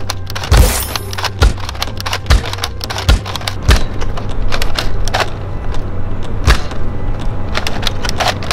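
Toy dart blaster being handled and fired: several sharp plastic clacks and knocks, irregular and about a second apart, over a steady low rumble.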